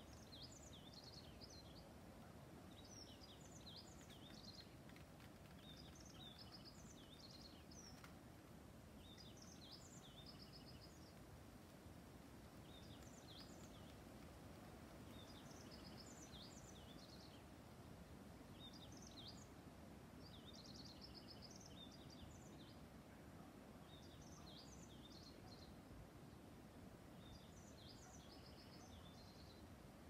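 A small songbird repeating a short, high twittering phrase about every two to three seconds, faint over a low, steady background rumble.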